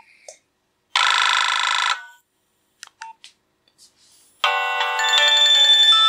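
Nokia 2310 ringtone previews. A short, dense electronic tone sounds for about a second, starting about a second in. A few faint clicks follow, and about four and a half seconds in a new multi-note polyphonic ringtone melody starts and keeps playing.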